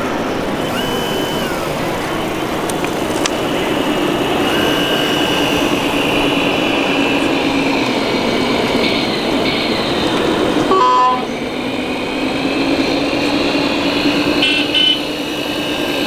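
Steady mechanical hum and whine of 1/14-scale RC model construction machines at work, among them a hydraulic Volvo excavator, over busy exhibition-hall background noise. A few short horn-like toots sound now and then.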